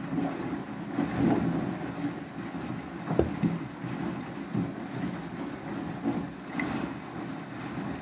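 Beko WTK104121W front-loading washing machine washing, its drum turning and water and suds sloshing against the door glass in uneven swells. A single sharp knock sounds about three seconds in.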